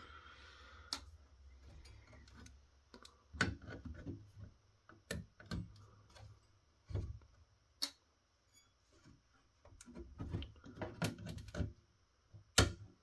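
Irregular clicks and knocks of hand work on heatsink push pins: cutters snipping the plastic pins of spring-tensioned heatsink clips and the heatsinks being worked loose from the circuit board. The clicks come in a busier run near the end, and the sharpest, loudest click comes just before the end.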